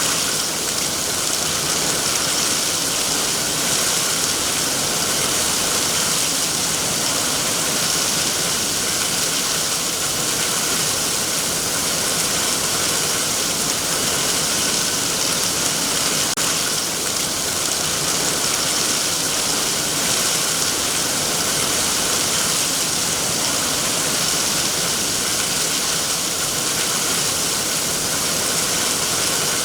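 Heavy rain falling on trees, a steady, even hiss of drops without a break.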